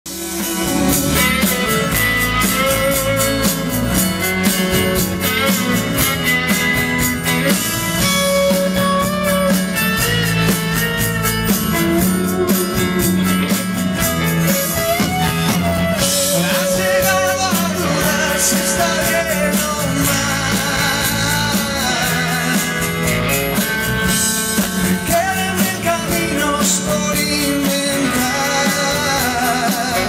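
Live pop-rock band playing through a PA: electric guitar, keyboard and drums with a steady beat, and a man singing over them.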